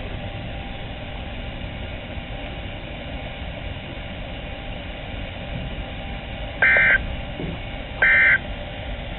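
NOAA Weather Radio receiver hissing with static, then two short bursts of digital data tones about a second and a half apart, beginning about six and a half seconds in: the EAS end-of-message code that closes the broadcast test alert.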